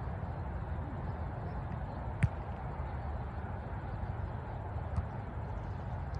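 A single sharp thump of a soccer ball being kicked long, about two seconds in, with a fainter knock near the end, over a steady low outdoor rumble.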